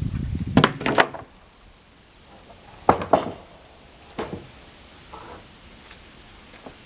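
Freshly sawn poplar boards knocking and clacking as they are handled and stacked: a few sharp knocks within the first second, two more about three seconds in, and one just past four seconds.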